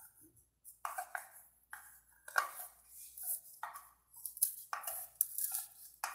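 Knife cutting and scraping at a cake in repeated, uneven strokes, about one or two a second, with a clink of metal now and then.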